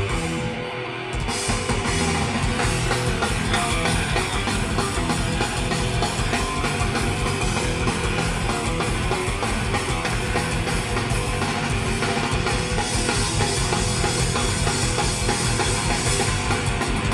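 Live punk rock band played loud through an open-air PA: an electric guitar alone at first, then drums and the full band come in about a second in and keep a fast, driving beat.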